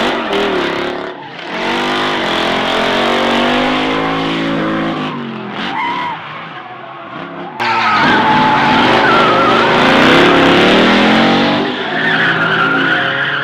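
Drift cars with their engines revving up and down hard, over tyres skidding and squealing. There is a quieter lull in the middle, then the sound jumps suddenly louder and stays loud with high tyre squeal.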